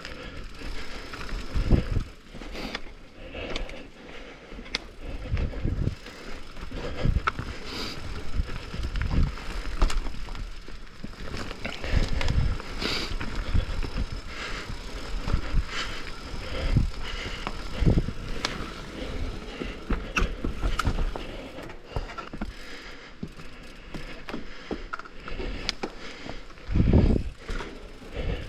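Downhill mountain bike descending a rough trail: tyres on dirt and rock with the chain and frame rattling and clicking, and repeated heavy thumps as it takes hits and bumps.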